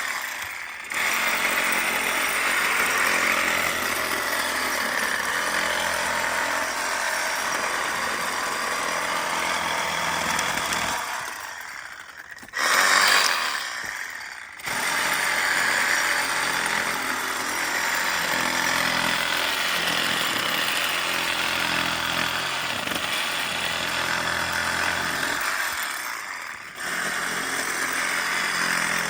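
DeWalt cordless reciprocating saw with a pruning blade cutting through tree branches, running in long stretches. It stops briefly about a second in, again near the middle, where a short louder burst of noise follows, and once more near the end.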